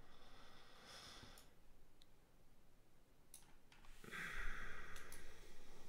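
Faint clicks of a computer mouse selecting a list of text, a few scattered single clicks, with a soft breath out about four seconds in.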